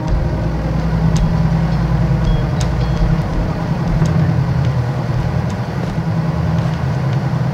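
Sailboat's inboard diesel engine idling steadily. A few faint clicks and two short high beeps sound about two and three seconds in.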